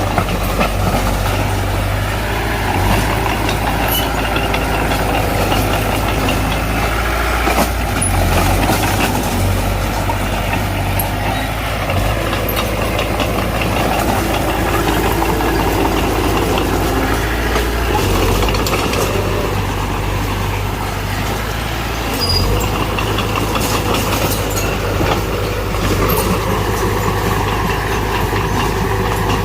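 Diesel engine of heavy earthmoving machinery running steadily, with a few sharp knocks now and then.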